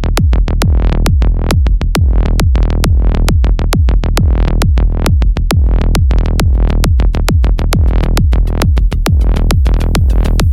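Electronic background music with a fast, steady drum-machine beat and heavy bass.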